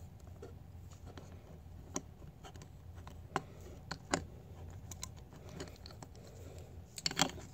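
Plastic Mega Bloks construction bricks clicking and tapping as a figure is pressed onto a brick stand plate: a few separate sharp clicks, then a quick cluster of clicks near the end, over a faint low hum.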